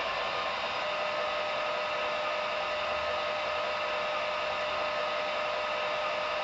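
Digital sound decoder of model ÖBB class 1020 electric locomotives playing a steady blower hiss and hum while the locomotives stand still. A steady whine joins about a second in.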